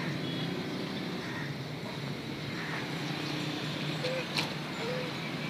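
Steady outdoor background hum of distant traffic, with two faint short calls about four and five seconds in.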